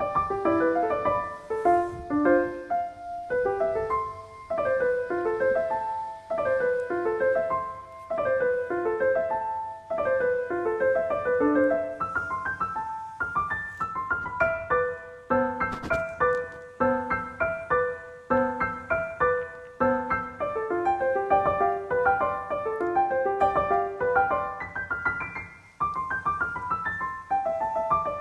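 Background piano music: a continuous melody of short, quickly moving notes.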